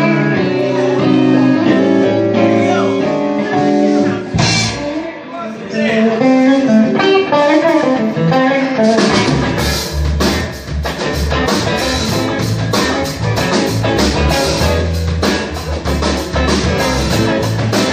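Live blues-rock band: an electric guitar plays alone with bent notes, then drums and bass guitar come in about nine seconds in with a steady beat.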